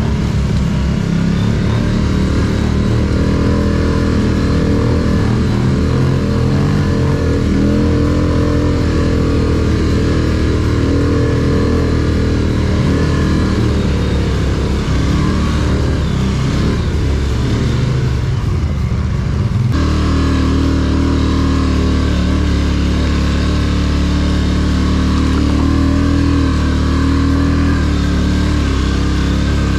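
Quad ATV engine running at low to moderate revs, its pitch rising and falling gently with the throttle while working up a steep dirt trail. The sound changes abruptly about twenty seconds in and then runs steadily again.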